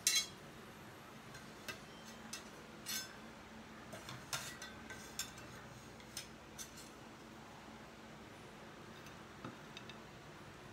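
A meat cleaver chopping and knocking on a wooden cutting board as cooked pork is sliced, with a fork clicking against the board and plate. About a dozen separate knocks and clicks, the loudest right at the start, thinning out in the second half.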